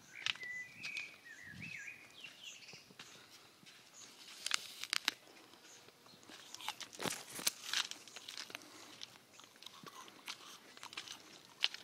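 Scattered crunches and clicks of someone walking and brushing through dry palm fronds and brush, with a small bird chirping in the first couple of seconds.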